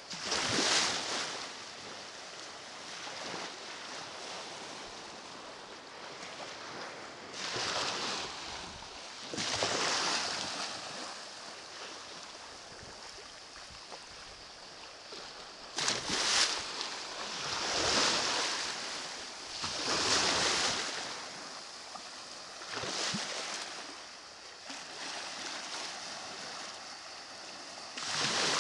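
Small waves washing up on a pebbly shore, a hissing surge rising and falling every few seconds.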